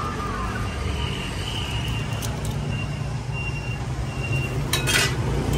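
Steady rumble of road traffic, with a brief clatter near the end.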